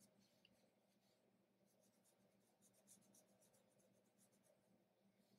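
Very faint rubbing of a fingertip blending chalk pastel on paper, heard as soft, irregular short strokes that cluster about two seconds in.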